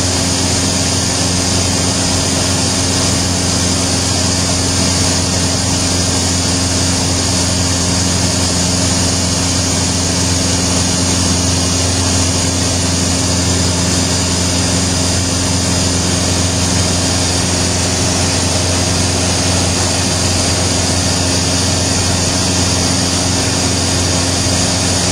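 Light aircraft's engine and propeller heard from inside the cockpit in steady flight: a loud, unchanging drone with constant low hum tones.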